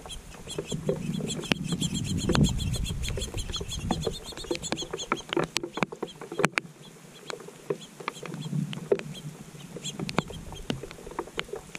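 A songbird's rapid trill of evenly repeated high notes lasting about four seconds, then stopping, over scattered sharp ticks and a low wind rumble on the microphone that dies down partway through.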